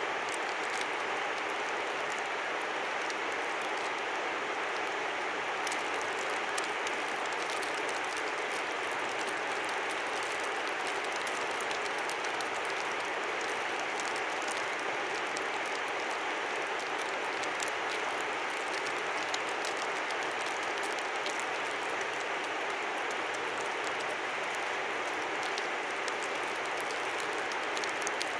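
Steady rush of a flowing river, with many light fine ticks over it.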